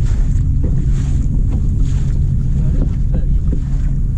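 Fishing boat under way: a steady low rumble with wind buffeting the microphone, and a faint hiss that swells about once a second.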